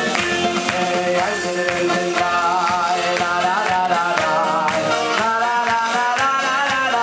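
Wedding band music for a mitzvah tanz dance: a man singing a slow melody over a steady percussion beat.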